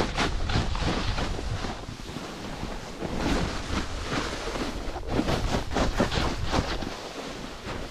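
Capita Spring Break Slush Slasher snowboard sliding and carving over packed snow, its edge scraping in repeated swishes as the rider turns, with wind rumbling on the microphone.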